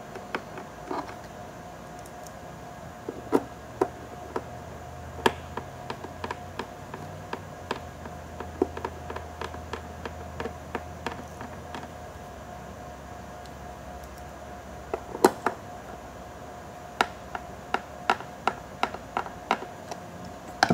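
Small screwdrivers driving screws back into the bottom case of a Panasonic Toughbook CF-29 laptop: irregular light clicks and taps of the driver tips, screws and tools against the case, over a steady faint hum.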